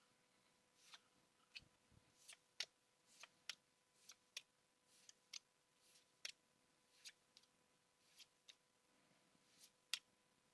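Pokémon trading cards being flicked through one by one, giving a string of short, crisp clicks and snaps about two a second, irregularly spaced, the sharpest about two and a half seconds in and near the end.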